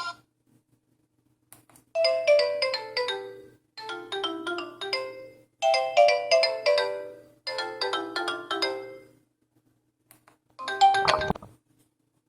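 Sigma X-Style S3500 sKai mobile phone playing a default ringtone through its speaker: a short melodic phrase of quick falling notes, repeated four times. After a brief pause, a different short tone starts and cuts off.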